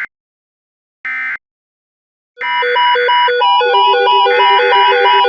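The end of the second and all of the third short digital data burst of an EAS SAME end-of-message code, each about a third of a second long, closing the weather radio alert. About a second of silence follows, then electronic music starts a little over two seconds in: a pulsing figure of short repeated notes, about three a second, over a held lower note.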